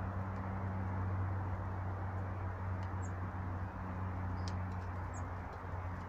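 Steady low hum and rushing background noise, with a few short, high bird chirps about three and five seconds in.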